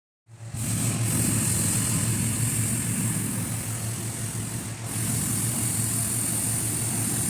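Hot air balloon's steady roar with a low hum underneath, starting suddenly just after a moment of silence and running unbroken.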